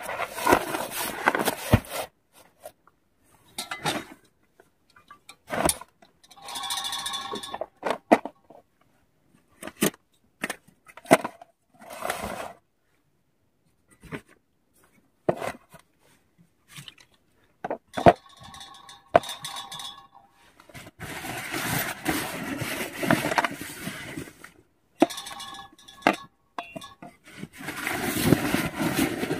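Camping gear being set down and arranged on a tent floor: irregular knocks, scrapes and clinks of metal and plastic, with rustling of the groundsheet in short bursts and a longer stretch of rustling near the end.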